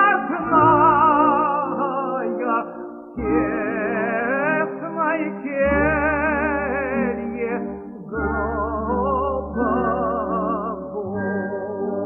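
Operatic tenor singing a slow Russian romance with strong vibrato over low sustained accompaniment, in long phrases with short breaks about three and eight seconds in, growing quieter near the end.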